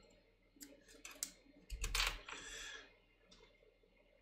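Faint light clicks and a soft knock from handling an iPhone SE and its SIM card tray, the loudest click with a low knock about two seconds in, followed by a short rustle.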